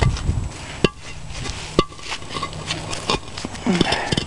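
Rustling of a white Agribon row-cover fabric being gathered and handled by gloved hands, with a few sharp clicks, the two loudest about one and two seconds in.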